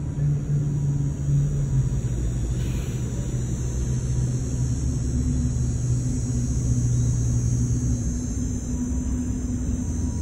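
A steady low motor hum and rumble, with a steady high hiss above it.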